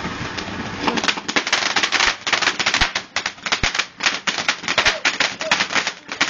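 A string of firecrackers going off in rapid, irregular bangs, several a second, starting about a second in and running on without a break.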